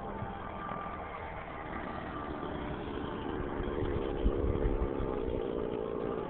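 Nitro glow engine and rotor of a 90-size Align T-Rex 700 RC helicopter running close by as it comes down onto the grass, its note growing stronger in the second half. Wind rumbles on the microphone throughout.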